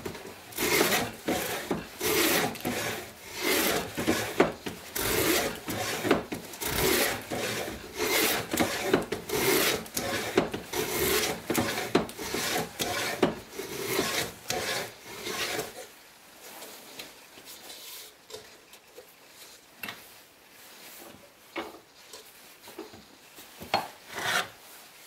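Antique wooden plough plane cutting a groove along the edge of a board, its iron shaving the wood in quick repeated strokes, about one and a half a second. The strokes stop about two-thirds of the way through, followed by a few faint knocks as the plane and board are handled.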